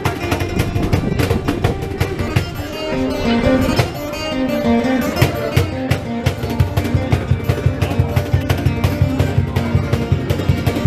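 Acoustic folk music led by a plucked guitar, with a fast, steady strummed or drummed beat that settles in about six seconds in.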